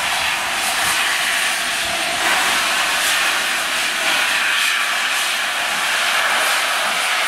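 Steam hissing steadily from the standing BR Standard Class 7 Pacific locomotive 70000 Britannia, a loud even rush with no beat or pitch.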